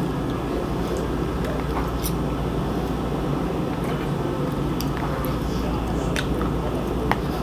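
Knife and fork working food in a bowl, giving a few light clicks and scrapes against the bowl over a steady low hum.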